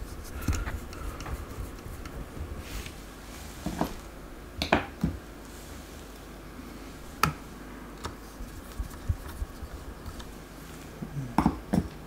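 Scattered small clicks and taps of tiny screws and a screwdriver being handled against a laptop's open bottom chassis, a second or more apart, with a short cluster of taps near the end.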